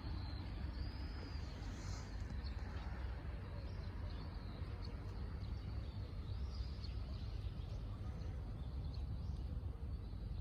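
Steady outdoor background noise with a heavy low rumble, with a few faint high bird chirps about a second in and again past the middle.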